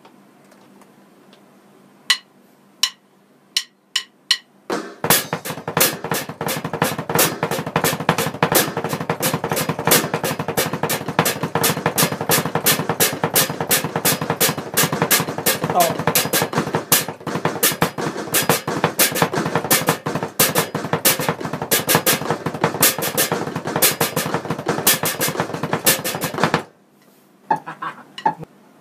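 Alesis electronic drum kit played in a fast, unbroken run of strokes for about twenty seconds, double-stroke footwork on the kick pedal, which stops abruptly. A few single hits come before the run and a few more near the end.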